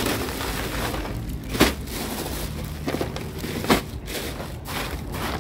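Ice being thrown by hand onto a freshly cut red snapper to ice it down: a continuous scraping rustle with two sharper knocks, about a second and a half and nearly four seconds in.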